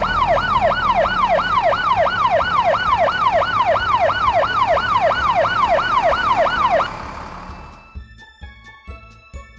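Fire engine siren in a fast yelp, its pitch sweeping up and down nearly three times a second, cutting off about seven seconds in. Quieter children's music with chiming notes follows.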